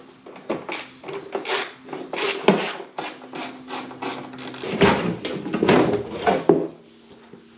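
Ratchet wrench worked in quick back-and-forth swings, about four rasping strokes a second, then a few heavier knocks and scrapes of metal on metal before it goes quieter. A faint steady hum lies underneath.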